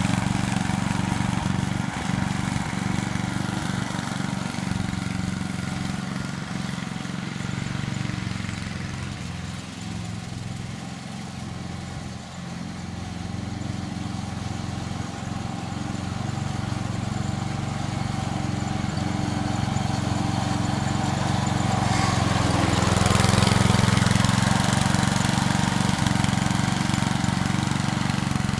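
Three-gang lawn mower's engine running steadily, quieter partway through and loudest a few seconds before the end.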